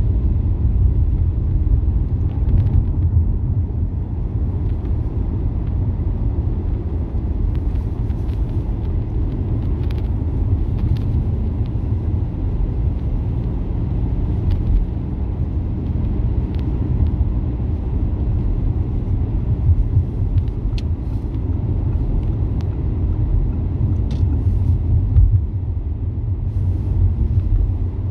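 Steady low rumble of road and engine noise inside the cabin of a moving car, with a few faint brief ticks.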